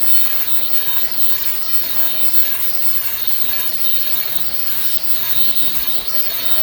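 Automatic face mask making machines running: a steady mechanical noise with a high hiss that pulses about twice a second.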